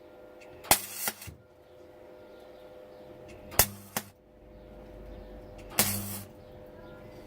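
MIG welder making short tack-weld bursts on thin sheet metal: three brief crackles of the arc, each well under a second with a low hum under it, about a second in, past halfway and near the end. A steady faint hum runs underneath.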